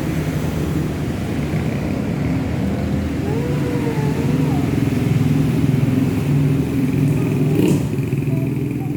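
Steady motor-vehicle engine noise from road traffic. A wavering tone comes in about three seconds in and lasts a second or so, and there is a sharp click near the end.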